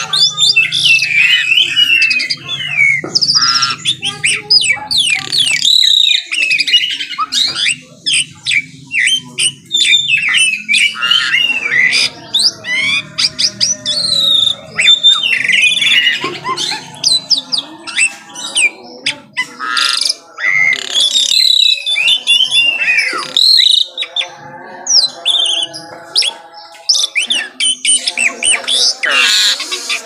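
White-rumped shama singing a long, varied song: rapid whistled phrases, glides and trills, one after another with only brief pauses.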